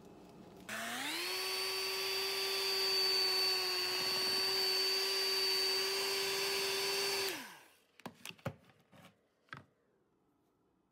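Electric hand mixer switched on, its motor spinning up to a steady whine as the beaters work through cake batter, then switched off and winding down about seven seconds in. A few light clicks and knocks follow.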